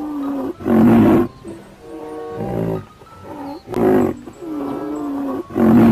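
Four loud, deep animal roars about a second and a half apart, with lower moaning calls between them, standing for rhinoceros calls.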